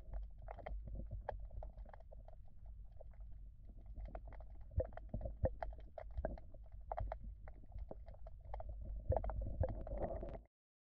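Muffled underwater sound of a river, heard through a submerged camera: a low rumble of moving water with many scattered clicks and knocks. It cuts off suddenly near the end.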